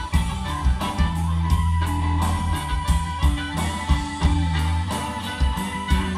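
Blues band playing live without vocals: electric guitar, bass guitar, drums and a Hammond XK-3 organ, with a steady beat.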